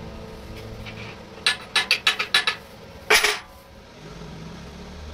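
Steel pieces clinking and knocking against each other: a quick run of five sharp clinks, then one louder ringing knock about a second later.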